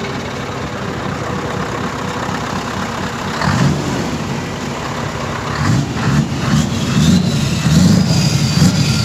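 Scania V8 diesel lorry engine running through open exhaust pipes with no silencers: a steady idle, then a short rev about three and a half seconds in and a few quick revs in the second half.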